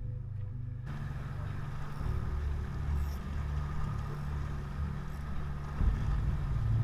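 Background music for about the first second, then an abrupt cut to the steady low rumble of a moving boat's motor, with wind and water noise on an action camera's microphone.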